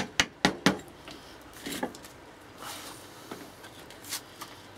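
A blade being worked into a lightning arrester's rubber and resin housing: four sharp knocks in the first second, then a few short scrapes as it cuts and prises at the tough material.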